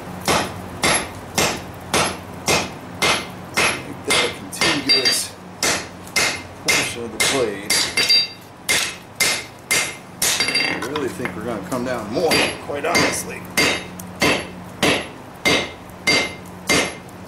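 Hammer blows on a hot lawn mower blade over an anvil, struck steadily about twice a second, each with a short metallic ring, drawing down the hump on the back of a kukri blade.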